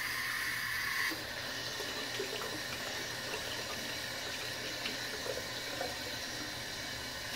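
Water running steadily from a tap into a sink, with a few faint small clicks.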